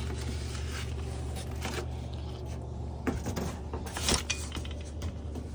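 Handling noises from unpacking an e-bike: a few short knocks and rustles of parts and packing foam, the sharpest about four seconds in, over a steady low hum.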